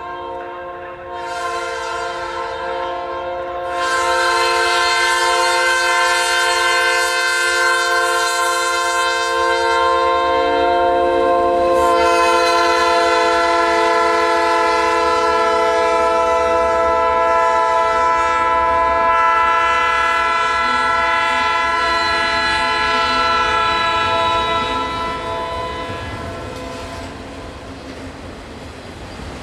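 A Norfolk Southern diesel freight locomotive sounding a long multi-note air horn as the train approaches and passes. The horn fades out near the end, leaving the rumble of autorack cars rolling by.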